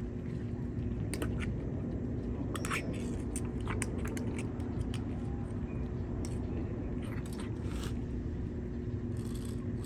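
Tabby cat eating wet food from a small can, irregular wet chewing and smacking clicks, over a steady low hum.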